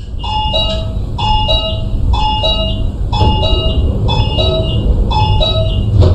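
Mexico City Metro train's door-closing warning chime: a falling two-note electronic chime repeating about once a second, six times, warning that the doors are about to close. It sounds over a steady low rumble.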